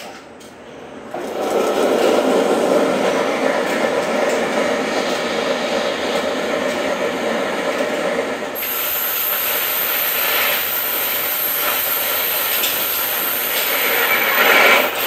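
Shinkansen bullet trains passing at high speed: a steady, loud rushing rumble that swells about a second in. About eight seconds in the sound changes abruptly and a sharper high hiss joins it.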